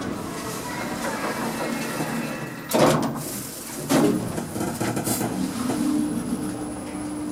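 Passenger lift in operation: steady running noise with two loud knocks about three and four seconds in, then a steady low hum.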